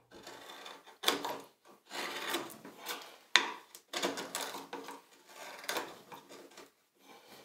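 Carving gouge pushed by hand through birch, paring shavings out of the hollow of a spoon bowl: a series of short scraping cuts, about one a second.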